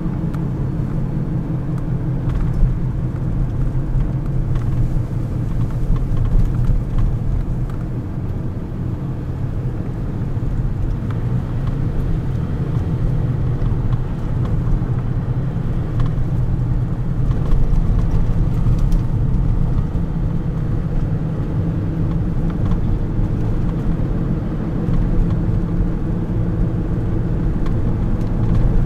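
Car engine and tyre road noise heard from inside the cabin while driving, a steady deep sound with small swells in level.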